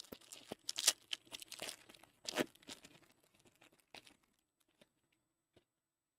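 Foil trading-card pack wrapper crinkling and cards being handled: a run of irregular sharp crinkles and rustles for about four seconds, then near silence.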